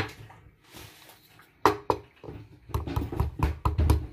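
Garlic cloves being pounded with a pestle in a mortar: a few separate strikes, then from a little past halfway a fast run of knocks, about five a second.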